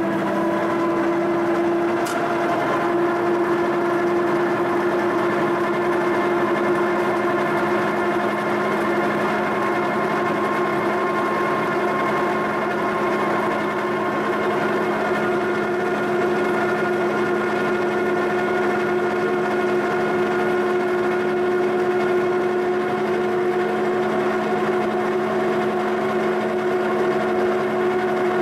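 Milling machine running at steady speed with a large face-mill cutter spinning, taking a skim cut of about ten thousandths across a cast-iron exhaust manifold's mounting flange to flatten the warped surface. A steady machine hum with several steady tones.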